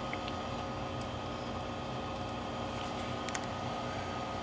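Steady machine hum with a few faint steady whining tones, typical of running laboratory instruments and their fans. A couple of faint light clicks come about three seconds in.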